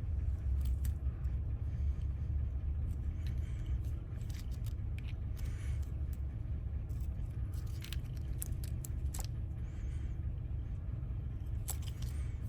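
Scattered light metal clicks and faint scraping of small lock wafers being handled and set into a van door lock cylinder, over a steady low hum.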